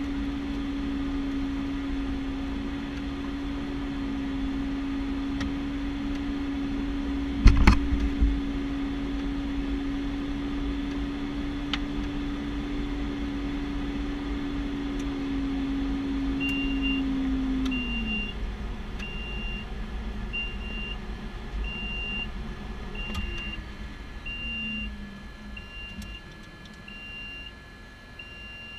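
Piper Cheyenne II's turboprop engines running steadily at idle, heard from the cockpit, then dropping in pitch a little past halfway as the engines are shut down, with a second falling tone a few seconds later. A single loud knock comes about seven and a half seconds in, and from about sixteen seconds a short electronic beep repeats about every 0.8 seconds.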